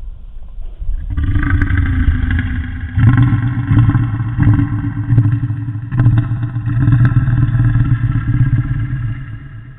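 Designed Spinosaurus vocalization sound effect: a deep, rumbling growl that starts about a second in, swells twice more, and fades out near the end.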